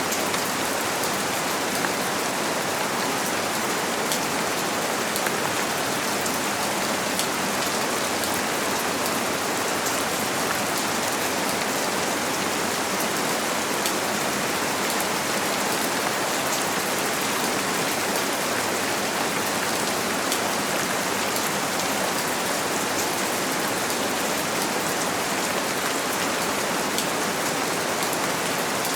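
Steady rain falling on a window, an even hiss with fine drop ticks that does not change, blended with white noise.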